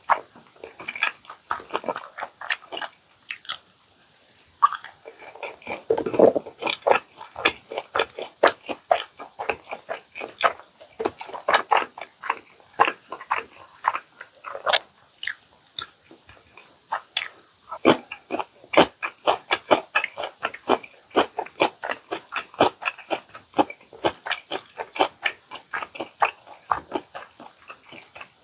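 Close-miked chewing and crunching of crispy food, a steady run of bites at about two to three a second with short pauses.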